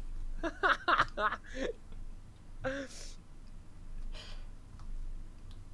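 A person's voice: a few short vocal sounds in the first two seconds that the recogniser could not turn into words, then two breathy exhalations, about three and four seconds in.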